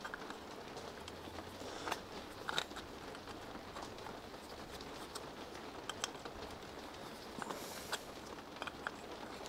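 Light clicks and small scrapes of metal carburettor parts being handled and a fitting threaded up hand tight on an Amal carburettor, a few separate sharp clicks over a low steady hiss.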